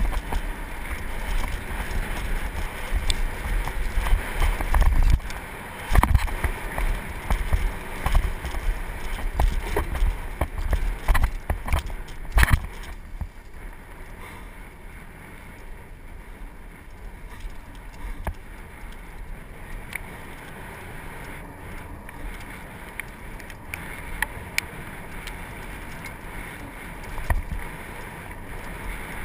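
Mountain bike descending a dirt and gravel trail: tyres rumbling over the ground, the bike rattling and knocking over bumps, with wind rushing on the microphone. Rough and loud with many knocks in the first half, a sharp knock about twelve seconds in, then a quieter, steadier rush on smoother track.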